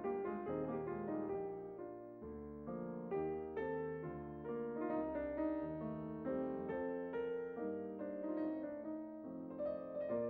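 Piano music: a gentle melody over chords, notes struck and fading at a steady moderate pace.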